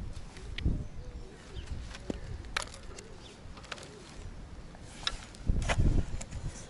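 Clicks and rustles of a landed goldfish and fishing tackle being handled, with heavy bumps on the camera's microphone about five and a half seconds in as the camera is moved.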